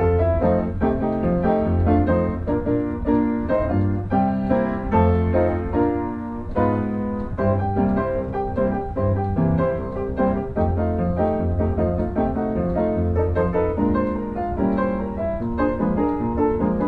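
Background piano music playing a steady melody over repeating bass notes.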